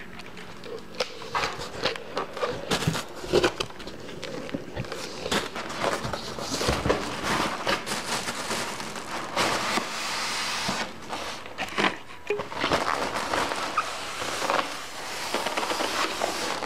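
A computer case being unpacked: its cardboard box and packaging rustling and crinkling, with many scattered knocks and clicks as it is handled.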